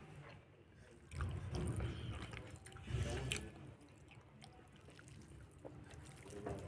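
Close, wet chewing and mouth sounds of a person eating rice and saucy meat by hand, with small clicks and squishes. There are two louder stretches, about a second in and again around three seconds in.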